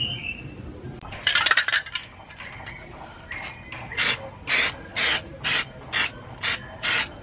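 Aerosol can of paint remover sprayed in short hissing puffs, about two a second, after a brief clattering burst about a second in.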